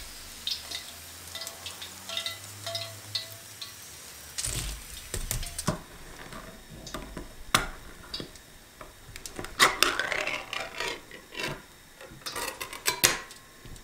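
A ring-pull food can being opened by hand. There are a few sharp metal clicks as the tab is worked, then longer tearing scrapes as the lid is peeled back, about ten and twelve seconds in.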